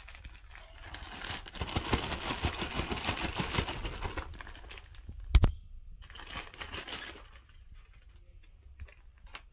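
Plastic mailer bag crinkling loudly as it is handled and the jersey in its plastic sleeve is pulled out. A single sharp knock about five seconds in, followed by a shorter burst of crinkling, then quieter rustling.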